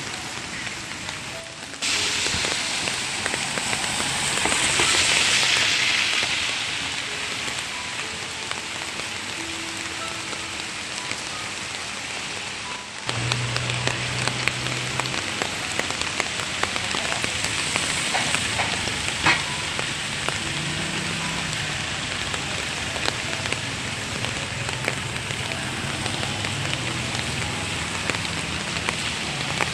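Heavy rain falling steadily as a dense hiss. The sound changes abruptly about two seconds in and again about thirteen seconds in, and it swells briefly between about four and six seconds.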